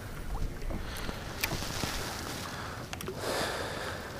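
Wind buffeting the microphone and small waves lapping against a boat hull, with a few sharp clicks and a brief swell of splashing noise about three seconds in.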